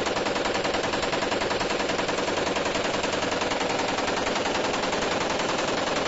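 M240 belt-fed machine gun, firing 7.62×51 mm NATO, in one long unbroken burst of fully automatic fire at a fast, even rate.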